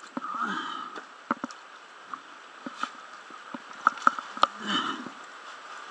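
Scattered light knocks and clicks of wet gear being handled and set down on wooden boards, over a faint trickle of water.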